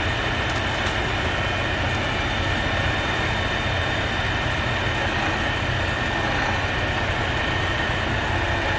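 Heavy machinery engine running steadily, with a constant drone and whine.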